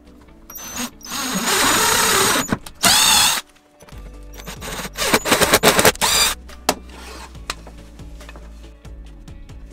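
Electric drill with a spiral wood bit boring holes into a pine strip, in three bursts of a second or two each, the motor whine wavering in the second one. Background music plays underneath.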